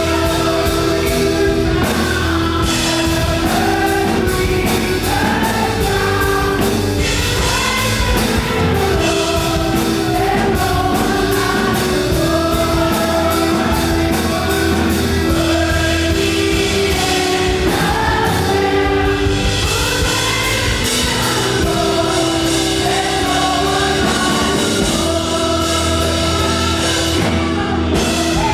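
Fast live gospel worship song: a group of singers over a full band with driving, rapid drum beats and bass.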